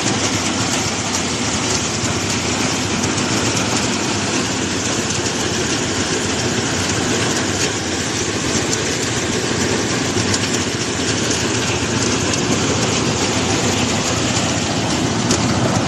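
Rice harvesting machine running steadily: a loud, even mechanical drone with no letup.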